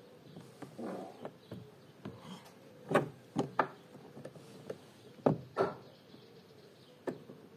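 Peugeot 208 rear-door plastic trim panel being pried and pulled off the door, a series of sharp clicks and knocks as its plastic retaining clips pop loose, the loudest about three seconds in.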